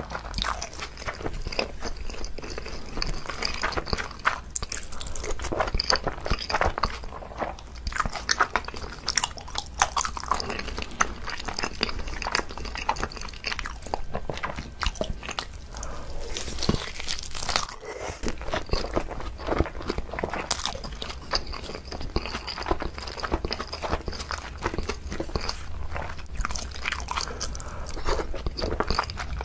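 A person biting and chewing a seaweed-wrapped gimbap roll, crunching in quick, irregular crackles.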